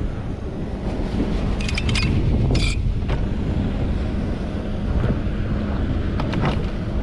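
Wind buffeting the microphone on a small boat on the water, with a steady low hum underneath. A few light clicks and a short hiss come about two seconds in.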